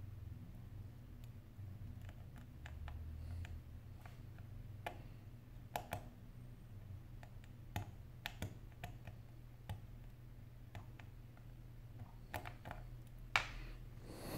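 Scattered light clicks and ticks of a precision screwdriver and small metal screws and brackets being worked inside an opened iPhone 8 Plus, with a louder clack about a second before the end, over a low steady hum.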